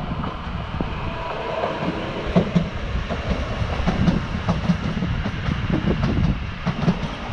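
Auckland Transport AM class electric multiple unit passing close by, running with a steady rumble. From about two seconds in, its wheels give repeated sharp clacks over the rail joints.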